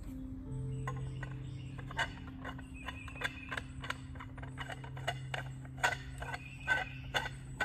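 A series of sharp ratcheting clicks, about three a second, starting about two seconds in, as a hand tool is worked on a fitting while a trellis pipe is being assembled.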